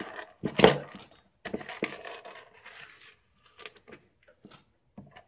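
A plastic bowl of cleaning liquid being handled with a gloved hand: a sharp thump about half a second in, then a couple of seconds of sloshing and rubbing, then a few light knocks and clicks.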